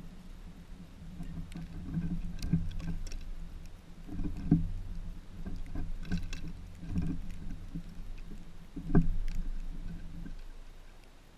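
Fox squirrel moving and feeding on a wooden seed feeder right beside the camera: a low rumble with scattered knocks and scrapes, the loudest knock about nine seconds in, fading away near the end as the squirrel climbs off the lid.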